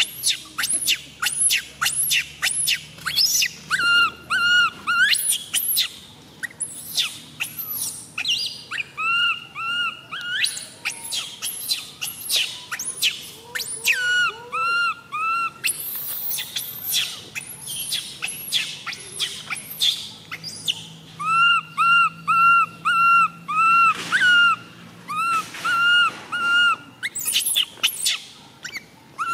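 Baby long-tailed macaque crying in distress: a rapid, unbroken string of short, high-pitched squeals and chirps, broken by runs of quick, evenly repeated arched cries.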